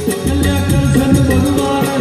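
Gujarati garba music played live: a man singing to harmonium, with hand drum and shaker-like percussion keeping a quick, even beat.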